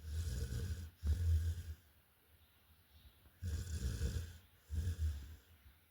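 Golden retriever snoring loudly in its sleep. There are two snoring breaths about three and a half seconds apart, each in two parts.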